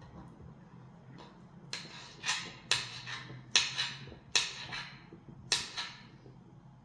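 Small kitchen knife cutting through canned ham and striking a glass cutting board: about eight sharp clicks at an uneven pace, starting nearly two seconds in.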